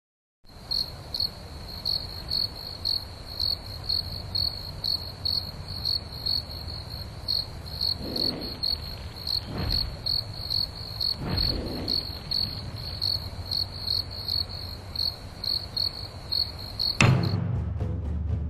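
Crickets chirping steadily, about two high chirps a second, over a low rumble, with a few swooshes around the middle. Near the end a deep drum hit cuts in and the chirping stops.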